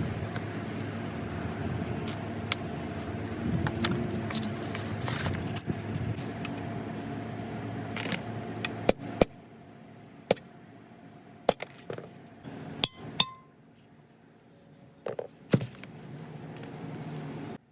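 A small electric motor running steadily with scraping on metal, stopping about nine seconds in; then loose metal parts clink and tap against each other several times.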